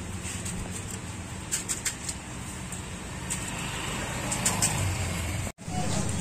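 Roadside street ambience: a steady low traffic rumble with scattered light clicks and taps from the stall as the vendor works the puris and filling. The sound drops out for an instant about five and a half seconds in.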